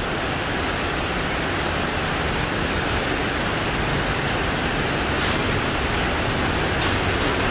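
Heavy tropical rain pouring down, a steady rushing hiss.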